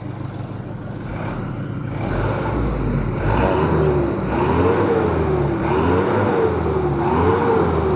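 Mitsubishi Canter 110 PS diesel engine heard at the tailpipe, running steadily at first, then revved up and down about three times from around three seconds in. It is being free-revved to check the exhaust smoke.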